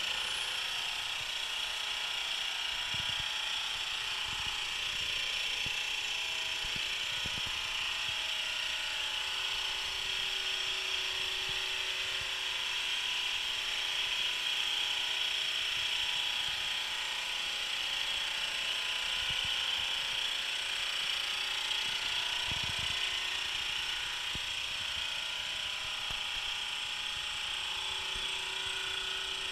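SMTmax SL-310 oil-free dental air compressor with twin pump heads, running steadily after being switched on. It makes an even, continuous motor hum with a bright hiss over it.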